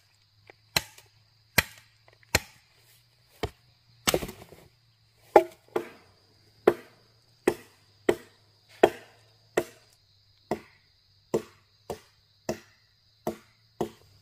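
Repeated chopping: about eighteen sharp strokes, roughly one a second, each a single clean blow.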